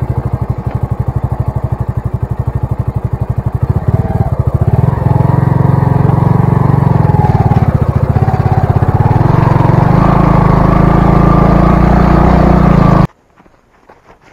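Bajaj V15's single-cylinder engine running with a steady, evenly pulsing exhaust note. It grows louder about four seconds in and holds there, then cuts off abruptly near the end.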